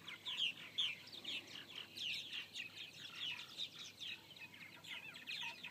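A flock of purple martins calling: many short, falling chirps overlapping, several a second.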